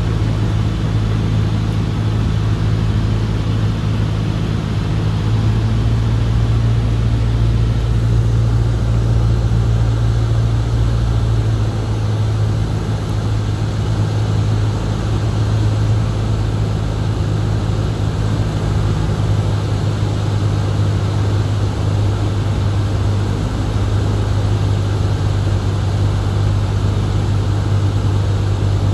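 Single-engine light aircraft's piston engine and propeller droning steadily, heard from inside the cockpit. The drone's pitch drops slightly about eleven seconds in.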